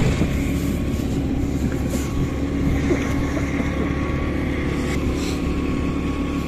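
Engine drone and wind rush of a two-wheeler heard from the pillion seat while riding at a steady speed: a constant low rumble with an unchanging engine hum.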